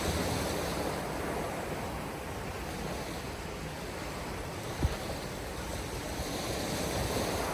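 Surf breaking on the beach with strong wind buffeting the microphone, a steady rushing noise. A single short low thump about five seconds in.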